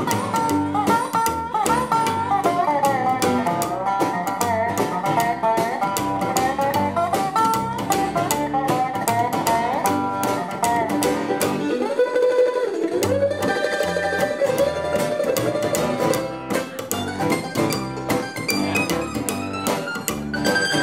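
Live string band playing an instrumental break with no singing: guitars picking a country-style melody over a plucked upright bass. The bass drops out for about a second roughly twelve seconds in, leaving a guitar line on its own before the band comes back in.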